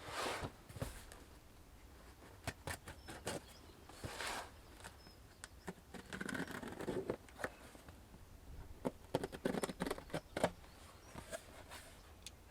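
A cardboard shipping box and its packaging being opened and handled by hand: rustling, scraping and scattered small clicks and taps.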